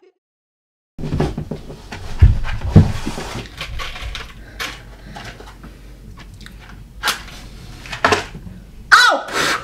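Handling noise: rustling and irregular soft knocks, with two heavier low thumps a little over a second in and a few sharp clicks later on.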